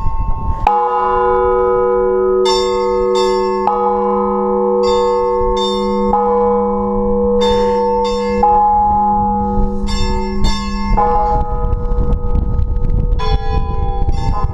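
Church bells rung by hand in an Orthodox belfry for Easter. A deep bell is struck about a second in and left ringing, and smaller, higher bells are struck over it in short, uneven groups. Wind rumbles on the microphone underneath.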